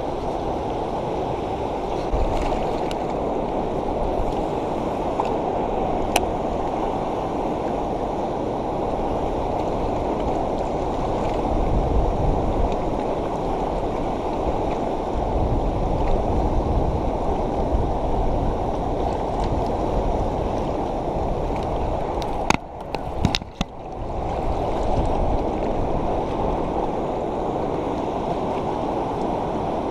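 Steady rush of flowing water, with a few sharp knocks, and the sound briefly drops out about three-quarters of the way through.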